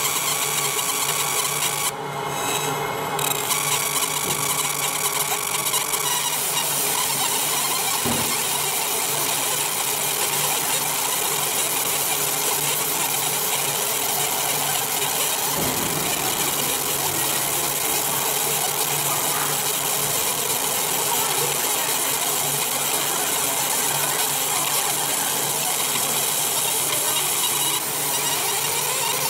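3D F10 fiber laser marker deep-engraving a relief into aluminum: the scanning beam ablating the metal gives a steady, dense buzzing hiss, with a steady low hum underneath.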